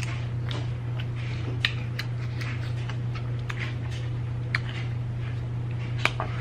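Close-miked chewing of crispy fried chicken: irregular crunches and wet mouth clicks over a steady low hum.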